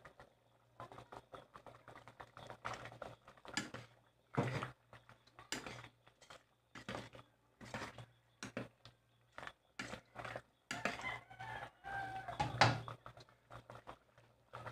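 A spoon stirring thick sambar in a metal pressure-cooker pot, giving a run of short, irregular clinks and scrapes against the pot. About eleven seconds in, a brief pitched call sounds in the background.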